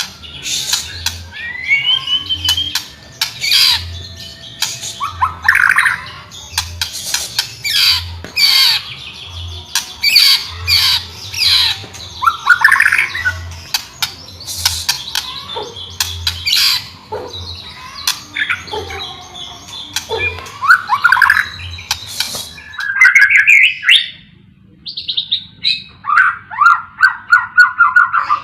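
White-rumped shama (murai batu) singing a loud, varied song of harsh rasping calls and whistled gliding phrases. It breaks off briefly near the end, then gives a fast run of repeated notes.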